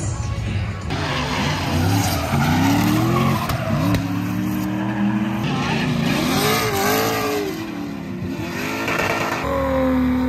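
Drift car engines revving hard, the pitch repeatedly climbing and dropping, with tyres squealing as the cars slide. Near the end an engine settles into a steady held note.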